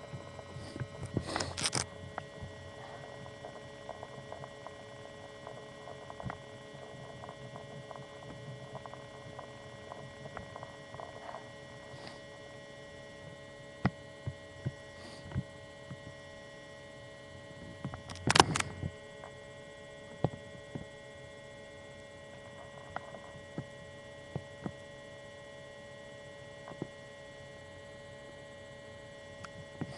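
Two sharp sneezes, one about a second and a half in and a louder one about eighteen seconds in, over a steady electrical hum with a few faint clicks.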